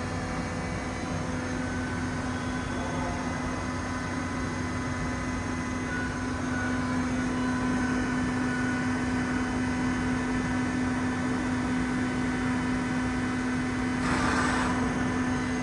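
Weiler CNC lathe running under power, a steady machine hum with a whine of several fixed tones that grows slightly louder about six seconds in. A brief hiss sounds near the end.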